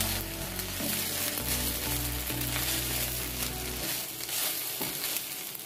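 Mini idlis sizzling in ghee in a nonstick pan while a silicone spatula stirs and tosses them in the spice powder, with soft background music underneath.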